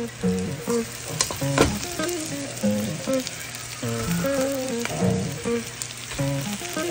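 Onions and peppers frying in a pan, sizzling steadily as bone-in chops are laid in, with a few sharp knocks. Music plays underneath.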